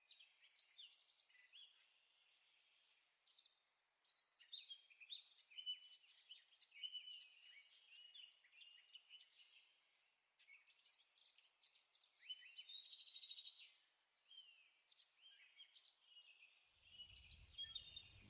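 Several songbirds singing faintly: a mix of short chirps, whistles and warbles, with a rapid trill about two-thirds of the way in.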